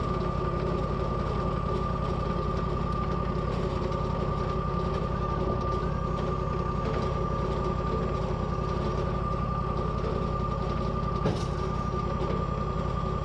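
Portable sawmill's engine running steadily, with a constant whine above the engine sound and one faint knock about eleven seconds in.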